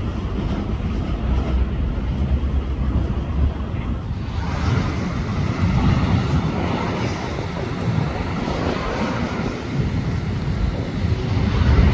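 Wind noise on the microphone over the low rumble of a distant approaching LIRR diesel train. About four seconds in, at a change of camera, the sound turns to a brighter, hissier wind noise.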